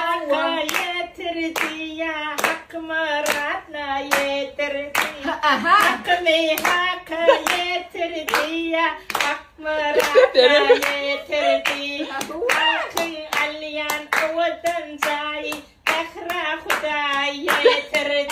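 A woman's voice singing an ornamented song, with steady rhythmic hand-clapping in time, about two claps a second.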